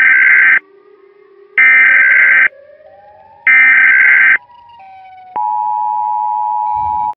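Emergency Alert System SAME header: three short, harsh digital data bursts about a second apart, carrying the alert's coded message. About five seconds in, the steady two-tone EAS Attention Signal (853 and 960 Hz together) starts and keeps sounding.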